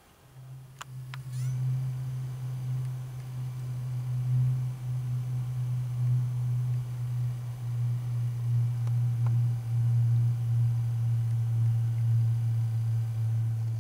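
A steady low droning tone held at one pitch, starting just after the beginning and cutting off just after the end, with a couple of faint clicks early on and one more about nine seconds in.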